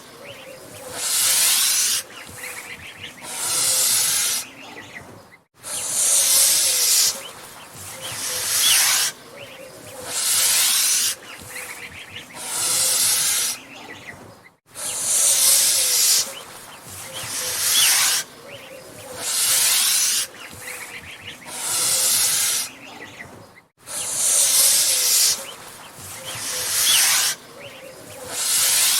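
Angry goose hissing, a long series of loud hisses, one roughly every two seconds, each lasting about a second.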